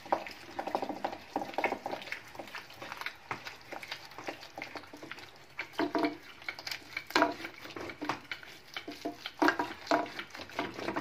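A wooden mathni (hand churner) mashing thick, cooked onion-tomato curry masala in a nonstick pot, with irregular wet stirring and knocks against the pot, louder about halfway through and near the end.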